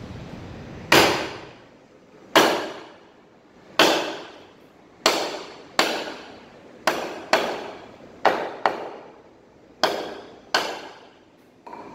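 A wooden mallet strikes the back of a froe blade, driving it down into a standing log to split it: about eleven sharp knocks at uneven intervals, some in quick pairs, each ringing briefly.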